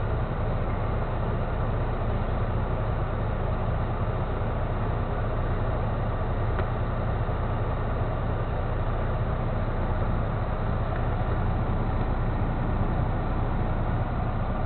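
Heavy tow truck's diesel engine running steadily, heard from inside the cab as a constant low hum.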